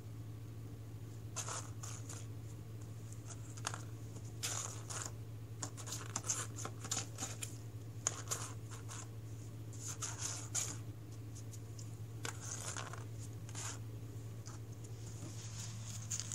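A cat batting plastic iced-tea bottle cap rings around the cardboard floor of a box: irregular short bursts of claws and plastic scratching and scraping on cardboard, over a steady low hum.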